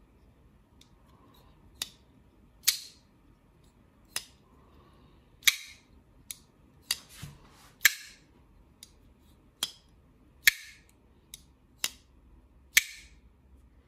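Spyderco Slysz Bowie folding knife with titanium scales being flicked open and closed again and again. It makes sharp metallic snaps as the blade swings out and locks, several with a short ring, and softer clicks as it is closed. There are about a dozen clicks at uneven intervals.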